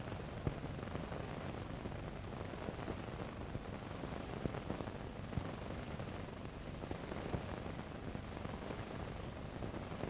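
Steady hiss from an old film soundtrack, with a few faint crackles and pops scattered through it.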